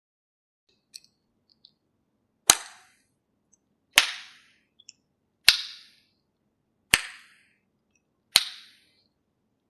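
Tongue clicks: the tongue pressed to the palate behind the front teeth and snapped down. Five loud, sharp clicks about a second and a half apart, each with a short ringing tail, after a few faint clicks near the start.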